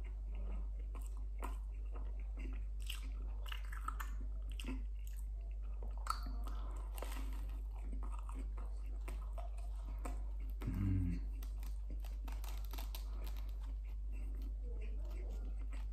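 A person chewing and biting into a crusty hot dog roll, with many small crunchy clicks and wet mouth sounds. A short low hum from the eater comes about two-thirds of the way through.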